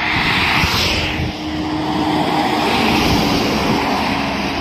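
Road traffic going past on a highway: a car and a bus drive by close, a steady rush of tyre and engine noise that swells about half a second in and again around three seconds.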